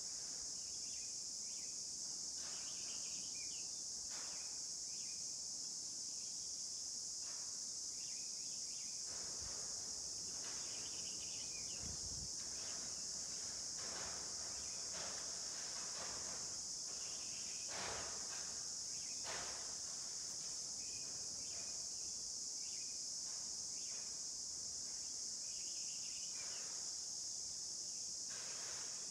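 Steady high-pitched chorus of insects, unbroken throughout, with a few faint soft taps and rustles scattered through it.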